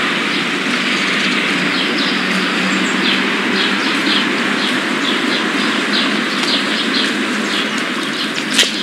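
Birds chirping over and over in short, quick calls above a loud, steady rushing noise, with one sharp click near the end.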